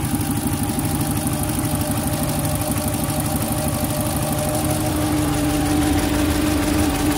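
MasterCraft X-2's Indmar MCX 350 V8 inboard engine idling steadily while it warms up toward operating temperature so its thermostat opens.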